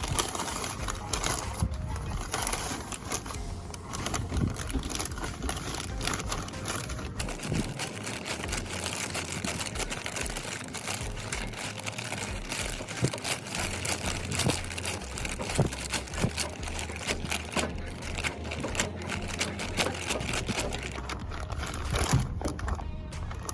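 Handling noise from work on the screw compressor's oil filter: dense, irregular clicking, rustling and clatter.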